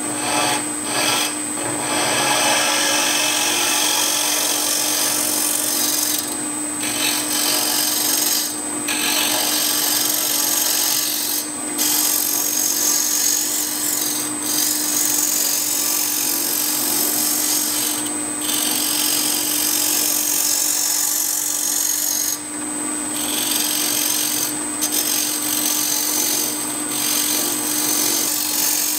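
A Boxmaster scraper cutting a wooden handwheel spinning on a wood lathe: a steady rasping cut that throws off shavings. It stops briefly every few seconds as the tool lifts off the wood. A steady hum runs underneath.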